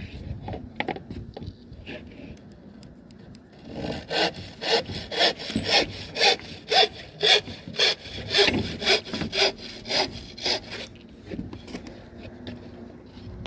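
Hand saw cutting through wood in steady back-and-forth strokes, about two a second, starting about four seconds in and stopping near eleven seconds. Lighter scrapes and knocks come before it.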